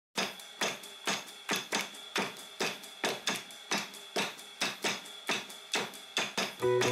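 A regular run of sharp clicks, about two to three a second, over a faint steady high tone; guitar music comes in near the end.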